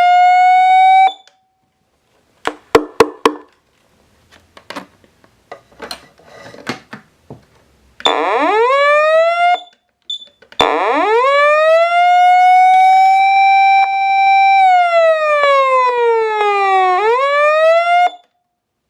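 Patlite SAP-500FBZ fire-engine siren amplifier sounding its electronic siren: a tone that winds up in pitch, holds, sinks and winds up again before cutting off, in several runs. Between runs there are a few short bursts of sound and scattered clicks.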